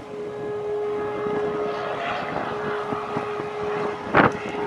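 A steady hum with noise under it, and a loud thump about four seconds in.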